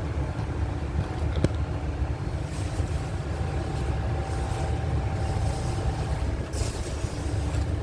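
An engine idling nearby, a steady low rumble with a constant hum. There is a faint click about one and a half seconds in.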